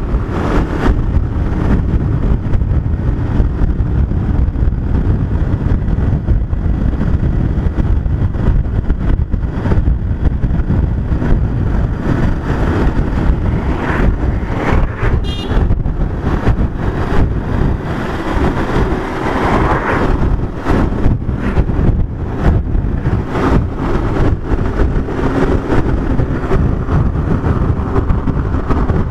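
A motorcycle ridden steadily along a paved road at about 40 to 50 km/h: continuous engine, tyre and wind noise on the bike-mounted microphone, loud and fluttering.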